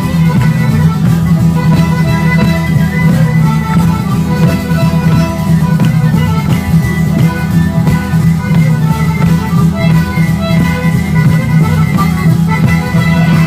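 Live band playing, a violin carrying the melody over guitar accompaniment.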